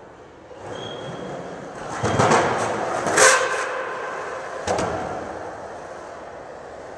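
Skateboard wheels rolling on a concrete floor, a rumble that swells as the board passes close by and then fades, with a sharp clack about three seconds in and another near five seconds.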